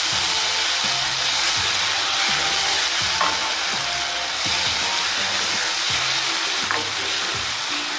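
Diced potatoes, onion and tomato puree sizzling in a non-stick frying pan as they are stirred with a spatula, with a couple of light clicks.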